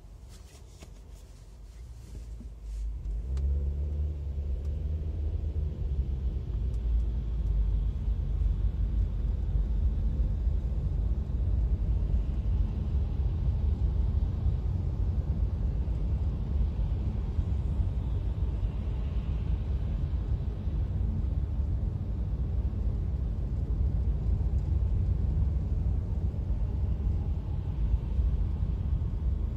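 Car interior noise: quiet at first, then about three seconds in the engine rises in pitch as the car pulls away, settling into a steady low rumble of engine and tyres on the road while driving.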